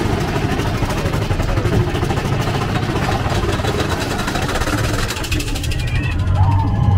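Big Thunder Mountain Railroad mine-train roller coaster running along its track: a steady, loud rumble and rattle of the cars. Riders' voices rise near the end.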